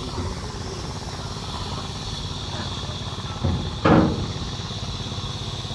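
Two heavy wooden thuds about three and a half seconds in, a large log knocking against the boat's side as it is heaved over the rail. A steady low engine-like hum runs underneath.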